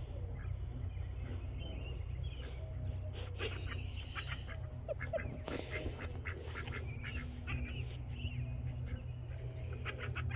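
Small flock of pet ducks giving short, soft quacks and chatter while foraging in grass, over a steady low rumble.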